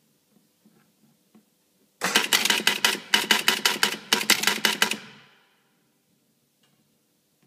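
Electromechanical clatter inside a Gottlieb Gypsy Queen pinball machine: the stepper unit and its relays clacking in a fast run of sharp clicks, about eight a second with two short breaks. It starts abruptly about two seconds in, lasts some three seconds, and ends with a brief ringing decay. Faint small ticks come before it.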